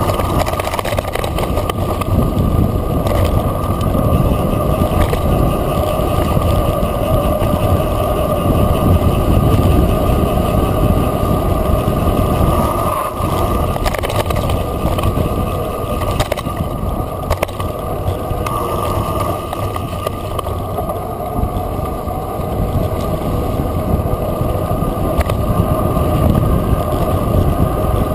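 Wind buffeting a camera microphone at speed over the rumble of mountain-bike tyres rolling down a dirt track, with scattered knocks and rattles from the bike going over bumps.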